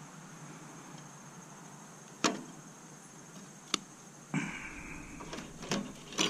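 About five sharp metallic clicks and clanks from hand tools and stainless steel parts being handled while a bread steamer is taken apart. One clank near the middle rings briefly.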